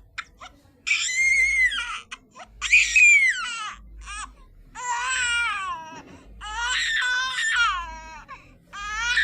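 Baby crying: a run of about five drawn-out, high wails, each about a second long, rising and falling in pitch, with short catching breaths between them.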